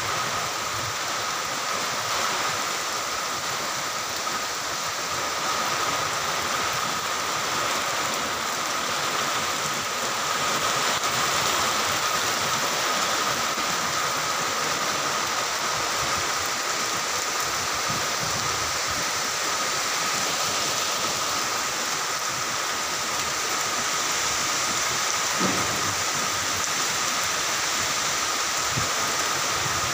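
Rain shower falling steadily, an even hiss that neither swells nor breaks.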